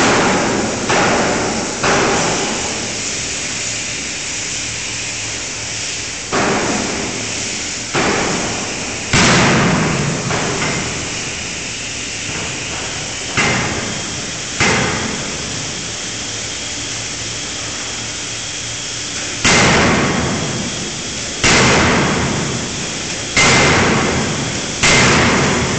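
A 5-ton fully hydraulic closed-die forging hammer striking hot steel in its dies. About a dozen heavy blows, each sudden with a hissing, ringing tail of a second or two, come in irregular groups of two or three with pauses of several seconds between, over a steady background noise.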